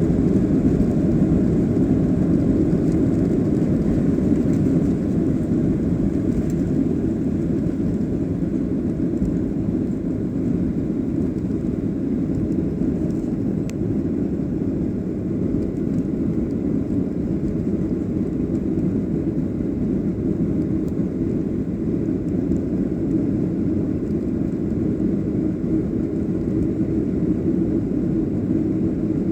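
Boeing 737-800 jet engines running during takeoff: a steady low rumble that eases slightly about five seconds in.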